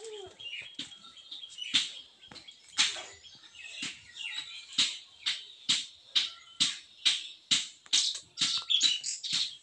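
Background music with sharp clap-like hits on the beat, about one a second and then quickening to about two a second; a short falling cry sounds at the very start.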